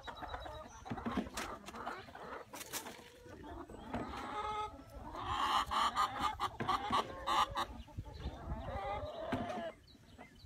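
Domestic hens clucking, with a run of repeated squawking calls about four to eight seconds in from a hen being picked up and held by a toddler, a sign of the bird's protest at being handled. Short scattered clicks are heard between the calls.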